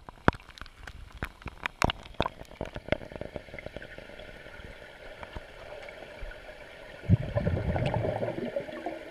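Rain falling on a swimming pool's surface, heard with the microphone at and then under the water: sharp separate drop ticks for the first three seconds, then a steadier, muffled underwater patter. About seven seconds in, a louder gurgling rush of water lasts about a second and a half.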